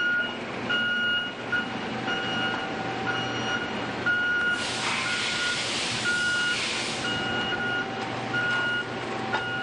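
Forklift reverse alarm beeping steadily, a little more than once a second, over a low machine hum. A loud hiss comes in about four and a half seconds in and lasts a couple of seconds.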